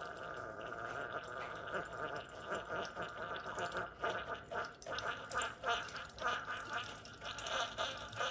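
Keurig K-Express single-serve coffee maker brewing a pod: gurgling and sputtering as hot water is pumped through, growing choppier towards the end.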